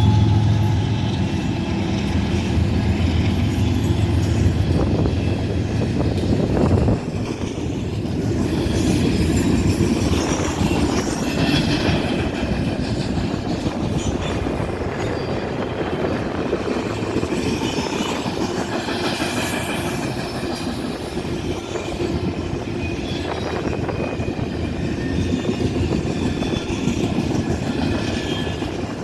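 BNSF freight train of double-stack container and piggyback cars rolling past, a steady rumble of steel wheels on rail with clickety-clack and high-pitched wheel squeal. A deep engine drone runs under it at first and stops abruptly about seven seconds in.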